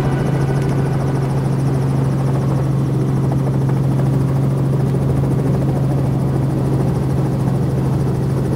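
Robinson R44 helicopter heard from inside the cabin: the rotors and six-cylinder piston engine make a steady drone with a strong low hum.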